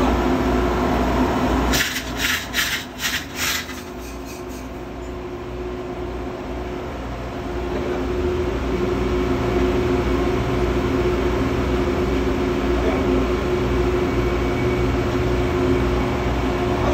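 Steady machinery hum of a ship's engine room, with a quick run of four or five sharp metallic clinks about two seconds in, during work on the main engine's crosshead bearing inside the crankcase.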